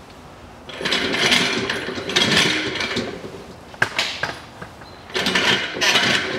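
Ratchet wrench clicking in quick runs, working the 19 mm oil drain plug loose on the engine sump, with a pause and a sharp click between the two runs.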